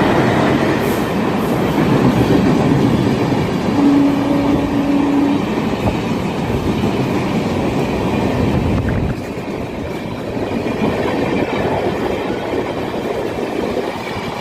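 Express passenger train running through a station at speed without stopping, its coaches rumbling and wheels clattering over the rail joints. A brief steady tone sounds about four seconds in.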